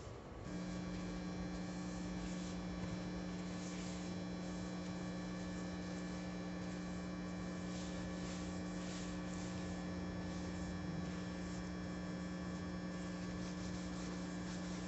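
Steady electrical hum that switches on about half a second in and holds one unchanging pitch. Faint rubbing of a cloth on a varnished wooden board can be heard under it now and then.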